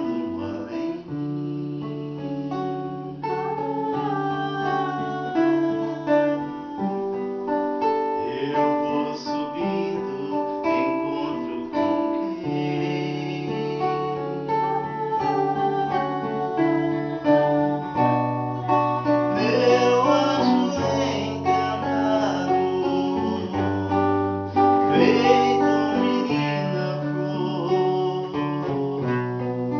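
Acoustic guitar playing a song's accompaniment over long held low bass notes, with a voice singing faintly along in the second half.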